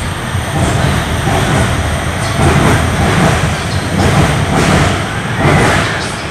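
A Guangzhou Metro Line 3 train, a six-car CSR Zhuzhou electric multiple unit, pulling out past the platform with a loud rumble of wheels and traction motors. The sound eases slightly as the last car passes near the end.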